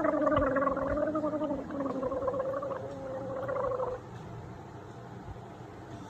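A person gargling water while voicing a held, slightly wavering note, the tone bubbling through the water; it stops about four seconds in, leaving a faint steady background hiss.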